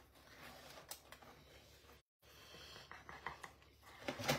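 Mostly quiet room with a few faint, light clicks and taps, and a brief drop to dead silence about two seconds in.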